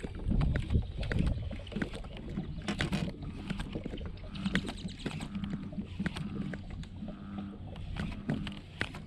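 Water lapping against a bass boat's hull, with scattered small clicks and taps and a faint steady hum from the electric trolling motor that comes and goes.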